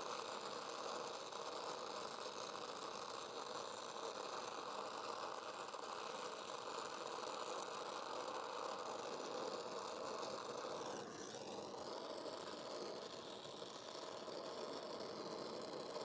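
Acetylene brazing torch flame hissing steadily while heating a copper liquid-line joint.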